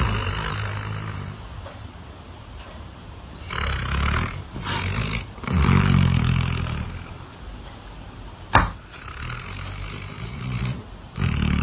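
A dog snoring, several loud snores a few seconds apart. There is a single sharp click partway through.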